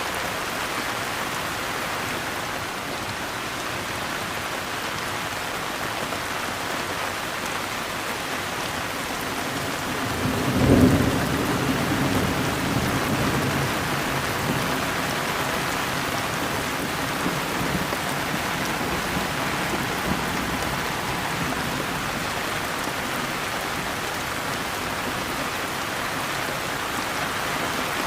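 Steady rain falling, with a clap of thunder about ten seconds in that rumbles away over the following few seconds.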